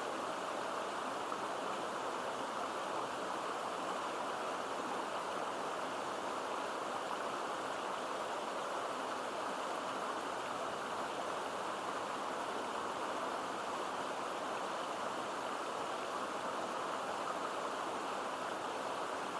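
Mountain stream and small waterfall pouring into a pool: a steady, even rush of water with no change in level.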